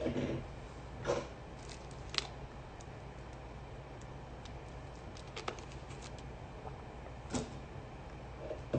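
Quiet room tone: a steady low hum with a few scattered soft clicks and short rustles.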